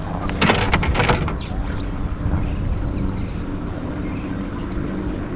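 A boat motor humming steadily, with a few loud sharp knocks and splashy noises about half a second to a second in, and a quick run of faint high ticks around two to three seconds in.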